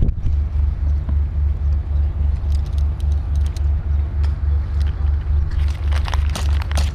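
A steady low mechanical throb, pulsing about four to five times a second, with scattered sharp clicks and snaps, most of them near the end.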